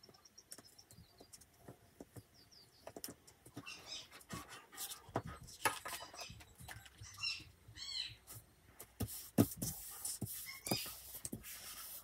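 Glue stick rubbed across paper, with short squeaks and clicks, then paper rustling and tapping as a cut paper shape is turned over and pressed flat by hand.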